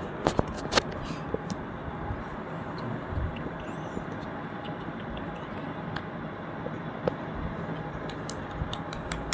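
Steady background noise, like room tone or distant traffic, with a few faint clicks about half a second to a second in.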